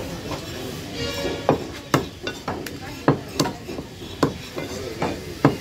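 Heavy knife chopping fish on a wooden chopping block: a run of sharp, uneven chops, about two a second, starting a second or so in.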